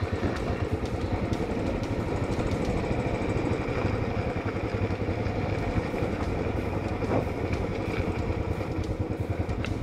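Royal Enfield Classic 500's single-cylinder engine running steadily at low revs, held in first gear on a steep dirt descent.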